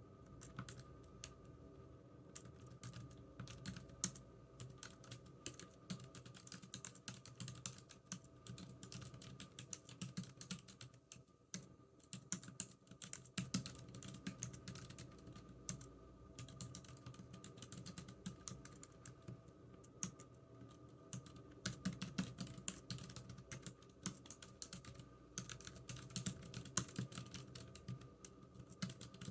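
Typing on a computer keyboard: irregular runs of key clicks with short pauses, over a faint steady room hum.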